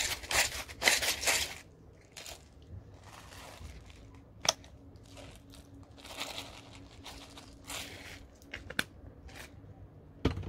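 Crinkling, rustling handling noise for the first second and a half, then quieter handling with a few sharp clicks, and a soft rattle of seasoning shaken from a spice bottle over raw meat about six seconds in.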